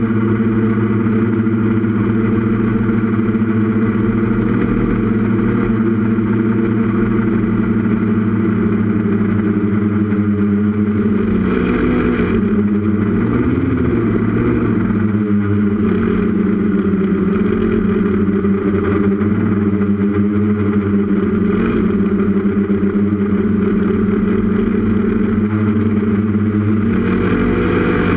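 Brushless Tiger motors and propellers of a 6S FPV multirotor running steadily in flight, heard through its onboard camera. The buzzing pitch wavers up and down for a few seconds midway and again near the end.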